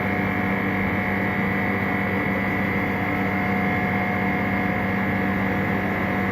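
A machine running with a steady hum made of several held tones, with no changes or sudden sounds.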